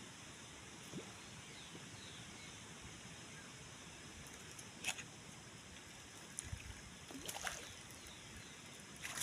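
Quiet waterside ambience: a faint steady wash of running water, with a few light clicks and knocks and faint high bird chirps.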